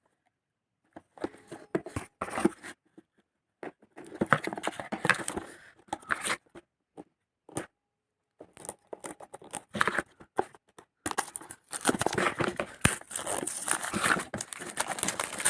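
Smartphone retail box and its wrapping being handled and opened: packaging rustles, tears and crinkles in irregular bursts with scattered clicks and taps. The noise grows busier and louder in the last few seconds.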